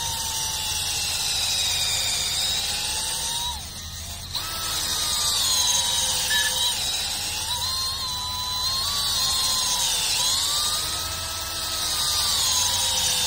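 Battery-operated drill spinning a valve-guide reamer in and out of a Continental O-200 cylinder's valve guide. The motor whines continuously and its pitch wavers as the reamer loads and frees, with a brief let-up about four seconds in. The reamer is cutting out carbon that had made the valve stick in its guide.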